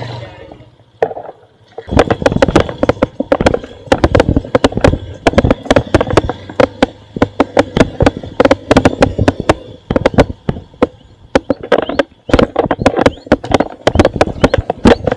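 A motorcycle engine's steady running stops at the very start. About two seconds in, gusty wind begins buffeting the microphone in loud, irregular crackling gusts.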